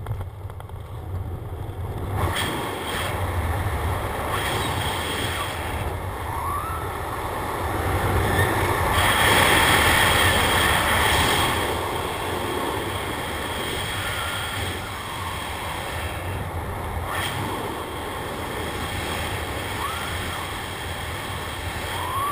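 Wind rushing over the camera microphone while flying under an open ram-air parachute canopy, a steady noisy rush that swells loudest about nine to eleven seconds in.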